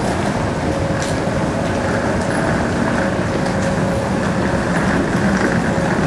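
Steady engine and road noise inside a city bus on the move, with a faint steady hum.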